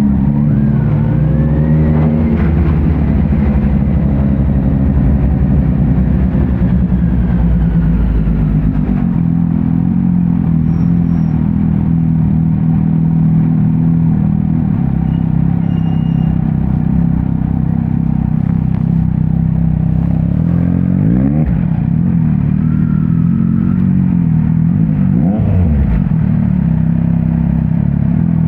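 2018 Kawasaki Z900's inline-four engine, running loud through a Leo Vince muffler on stock headers with no dB killer while the bike is ridden. The engine note rises over the first few seconds, then holds steady, with two brief sweeps in pitch about three-quarters of the way through.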